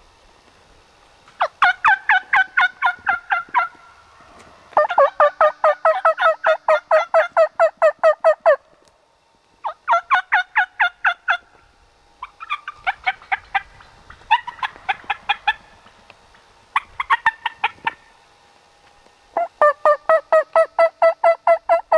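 Turkey yelping: series of evenly spaced, loud yelp notes at about four to five a second, in six runs of one to four seconds with short pauses between them.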